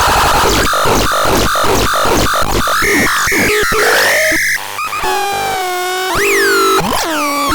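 Synthesizer playing electronic sounds: about three noisy, buzzing pulses a second for the first four seconds, then held tones whose pitch swoops up and slides back down.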